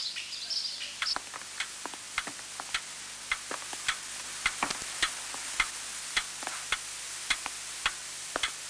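Weight-driven pendulum wall clock ticking steadily, about two ticks a second.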